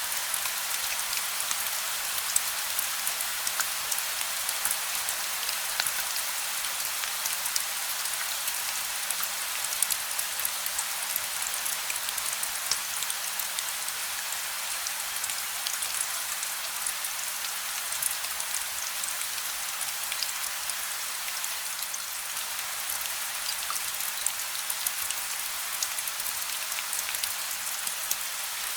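Steady rain falling on a surface: an even hiss full of fine, close drop ticks, with no thunder. A faint low hum runs underneath.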